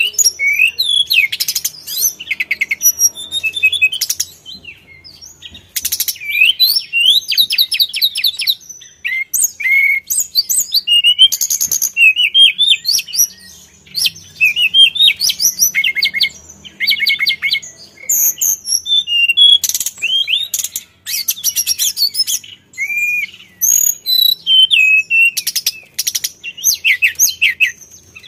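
Hill blue flycatcher singing a long, fast, varied song of rising and falling whistles and quick trills, with a few brief pauses.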